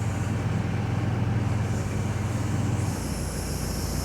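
Steady low mechanical hum, with a brief high hiss about three seconds in.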